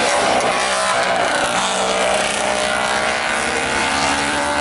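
Engines of historic road-racing motorcycles running hard as the bikes pass and lean through a corner. The engine note shifts in pitch as they go by, then steadies.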